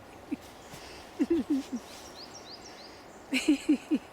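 A person laughing in two short runs of rhythmic 'ha-ha-ha' pulses, the kind of deliberate laughter done in laughter yoga. A few faint, quick rising bird chirps come in the middle.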